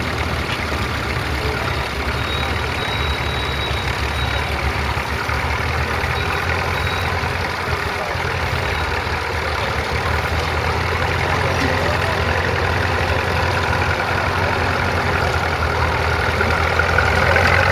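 Crawler tractor engine running steadily as it pulls a plough, growing gradually louder over the second half.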